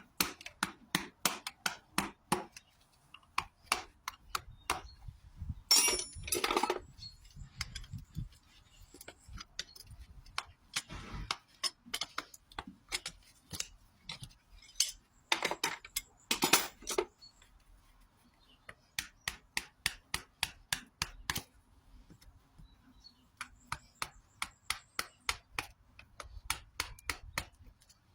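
Farrier's tools working a horse's hoof: runs of sharp taps, about three or four a second, broken by pauses, with a few longer scraping strokes about six seconds in and again around sixteen seconds.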